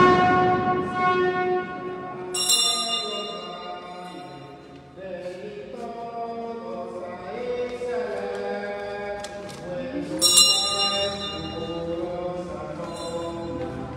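Voices singing a slow, chant-like hymn in long held notes. A small bell rings in short bursts twice, about two seconds in and again about ten seconds in.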